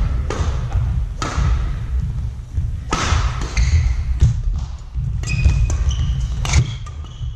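Badminton rally: sharp hits of rackets on the shuttlecock about a second apart, with players' footsteps thudding on the sports-hall floor.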